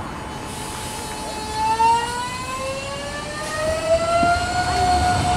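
CAF articulated electric multiple unit pulling away from a station, its traction motors giving a whine of several tones that climbs steadily in pitch as it accelerates, levelling off near the end.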